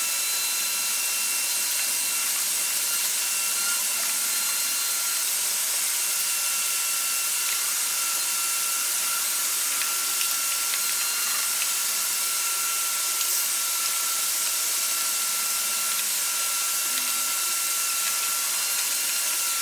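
Shop vacuum running steadily, a high motor whine over rushing air, as its hose nozzle sucks dirt and debris off a wooden board.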